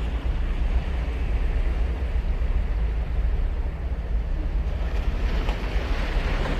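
Ocean surf on a sandy beach: a continuous wash of waves over a deep rumble, with a wave breaking and its hissing surge growing louder near the end.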